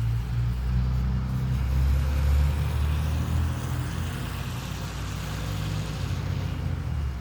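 Low rumble of an approaching train's locomotive engine, swelling about two seconds in and easing off later, over the steady hiss of heavy rain.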